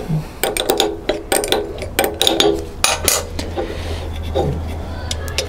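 Quick metallic clicking and clinking of a 10 mm spanner working the bolts that clamp a planer-thicknesser blade in its cutter block, with the metal retaining bar handled after. A low steady hum comes in about two and a half seconds in.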